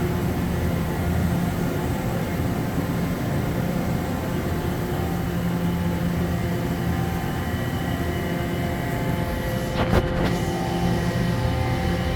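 Steady machinery drone with several constant hum tones, and one sharp click about ten seconds in.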